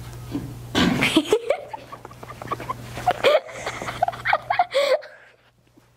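Two young girls laughing and giggling in short, squeaky bursts with gasps for breath, dying away about five seconds in.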